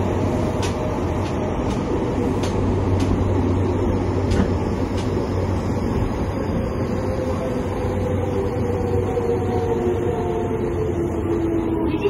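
Fukuoka City Subway 2000-series train's Hitachi GTO-VVVF inverter under the steady running noise of the car. In the first few seconds there are faint regular ticks. From about halfway on, the inverter's tones glide slowly downward as the train slows.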